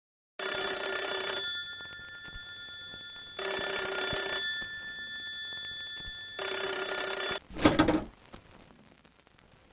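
Old telephone bell ringing three times, each ring about a second long and three seconds apart, then a short clunk.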